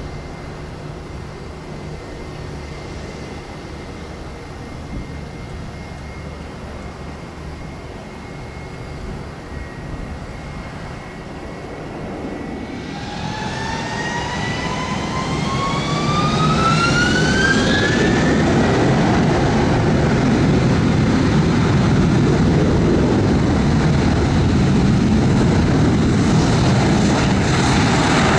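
Airbus A321 jet engines spooling up: a whine that climbs in pitch for about five seconds, starting about halfway through, builds into loud, steady takeoff-thrust jet noise. Before this there is quieter, steady jet noise with a faint high whine.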